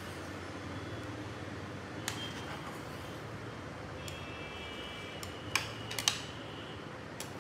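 A slotted metal spoon stirring rice pudding in a metal pot, clinking against the pot sides a few times, sharpest about five and a half and six seconds in, over a steady low hum.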